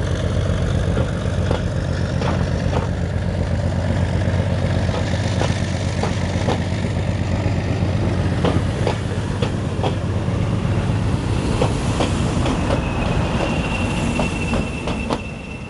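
Diesel locomotive engine running loud and steady as a train passes, with the wheels clicking over rail joints. A steady high squeal joins about three-quarters of the way through, and the engine sound falls away near the end.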